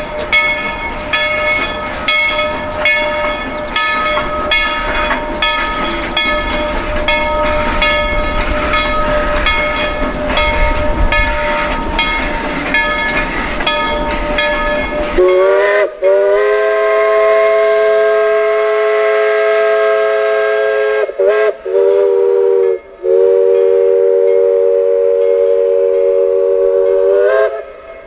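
Narrow-gauge steam locomotive working, its exhaust beating in even chuffs about one and a half a second. About halfway through a multi-note chime steam whistle opens with a slight upward slide and blows long, is cut into a few short toots, then blows long again until near the end.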